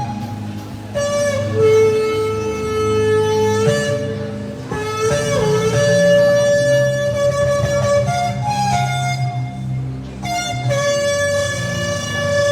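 Shofar (ram's horn) blown in a series of long held blasts with short breaks between them, stepping between two or three pitches.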